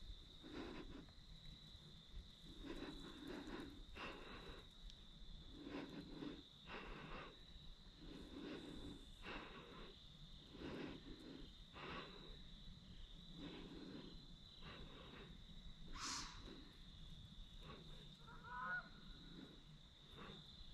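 A person's breathing close to the microphone, soft breaths every second or so, over a steady high insect drone. One sharp click about three-quarters of the way through, and a short call soon after.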